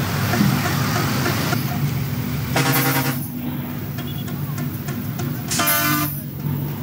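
Road traffic passing close, with a steady low engine hum. A vehicle horn sounds twice, each blast about half a second long, near three seconds in and again near six seconds in.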